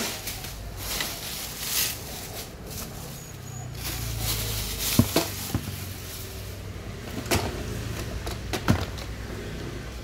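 Plastic bubble-wrap packaging crinkling as it is pulled off the parts of a robot vacuum in a cardboard box. A few sharp knocks and taps from handling come about halfway through and again near the end.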